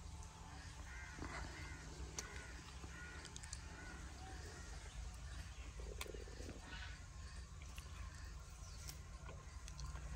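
Crows cawing faintly several times, mostly in the first half, over a low steady background rumble, with a few sharp clicks.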